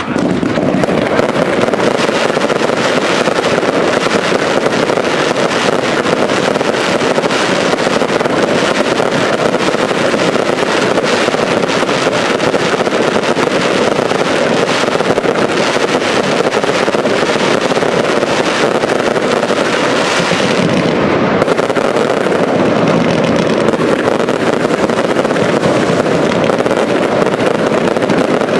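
Fireworks display: a dense, continuous barrage of aerial shells bursting and crackling, with many reports following close on one another.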